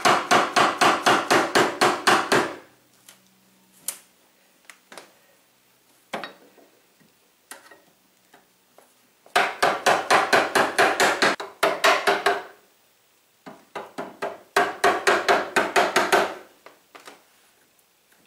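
Quick hammer taps driving a flat steel pry bar in between a pinball cabinet's wooden side and its metal trim rail to work the nails loose. The bar rings with each strike. The taps come in three rapid runs of about five or six a second: one at the start, one about nine seconds in, and a shorter one about fifteen seconds in.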